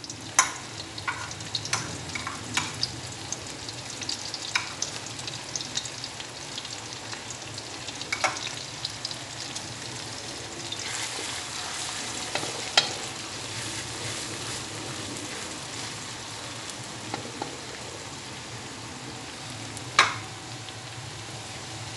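Pounded chili, shallot, garlic and dried-shrimp paste sizzling steadily in hot oil in a wok as it is stir-fried, with scattered sharp clicks and knocks of the spatula against the pan, the loudest about 13 and 20 seconds in.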